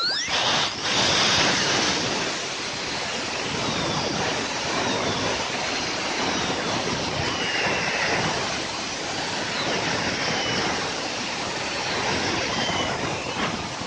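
Jetcat P-20 micro gas turbine running at high speed, about 250,000 rpm: an even rushing jet noise with faint high whine tones that glide down in pitch.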